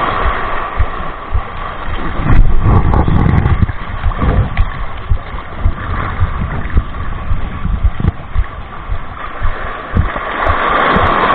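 Wind buffeting the microphone, with small waves splashing and washing against shoreline rocks; the noise surges about two seconds in and again near the end.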